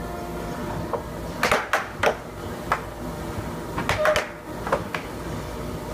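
Air hockey puck being hit back and forth with mallets, several sharp clacks against the mallets and table rails, over a steady low hum.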